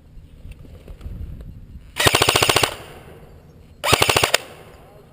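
Airsoft gun firing two short full-auto bursts, a rapid even rattle of shots: the first lasts under a second, the second follows about a second later and is a little shorter.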